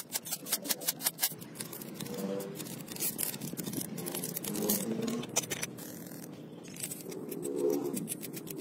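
Ratchet wrench clicking rapidly as bolts are run down on a motorcycle cylinder head, then quieter scraping and clinking of metal parts and tools.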